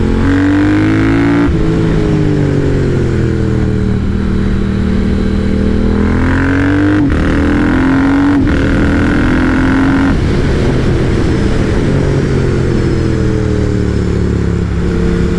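Triumph Speed Twin's parallel-twin engine under way, the revs rising as it accelerates, with brief breaks for upshifts about a second and a half in and again around seven and eight and a half seconds in, then the revs falling off as it slows before picking up again near the end.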